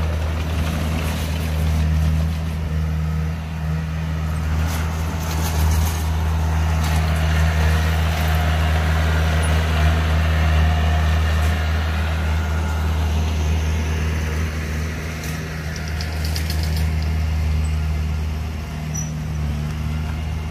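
Komatsu D20 small crawler bulldozer's diesel engine running steadily under load while it pushes dirt, with short bursts of clicking and clanking now and then.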